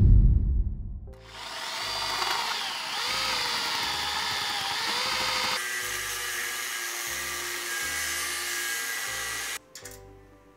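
Angle grinder cutting steel, a steady loud grinding with a whine that dips and recovers as the disc bites, stopping suddenly near the end. It opens with a deep rumble dying away in the first second, and background music plays underneath.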